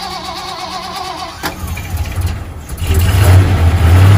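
An engine starting: a wavering whine for about a second and a half, then the engine catches and runs, getting louder and revving near the end.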